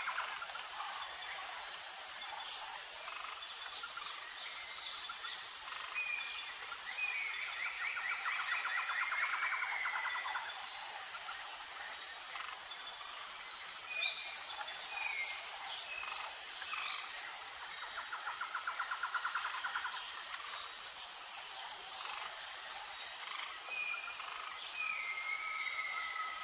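Tropical forest ambience: a steady high-pitched insect drone under scattered short whistled bird calls, with two longer rapid trills a few seconds each, the first around eight seconds in and the second near twenty seconds in.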